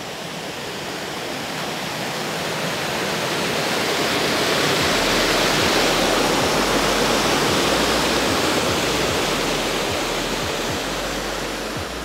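Small waterfall rushing: a steady hiss of falling water that swells and then eases off. From about halfway in, low thuds sound under it.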